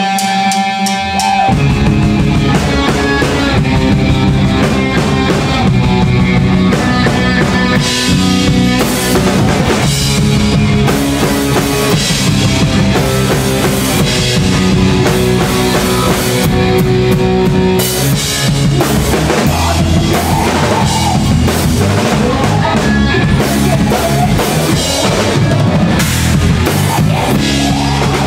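Rock band playing live: electric guitar, bass and a Ludwig drum kit. The guitar plays alone at first, and the drums and bass come in about a second and a half in, then keep going at full volume.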